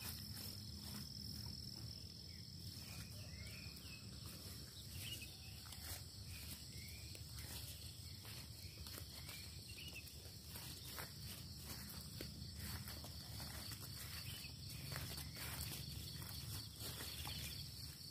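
Faint, steady high chirring of crickets, with irregular footsteps and the brushing of legs through dense low shrubs as people walk through the undergrowth.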